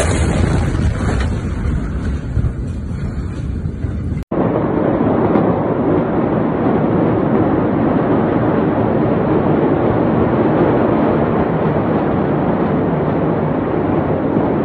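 A steady, loud rushing noise with no distinct events, starting at an abrupt cut about four seconds in. Before the cut there is a different rumbling noise.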